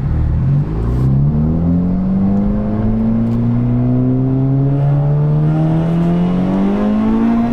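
Honda Civic Type R's turbocharged four-cylinder engine, fitted with a PRL high-flow intake, under hard acceleration: after a quick dip in revs at the start, the engine note climbs slowly and steadily through one long pull.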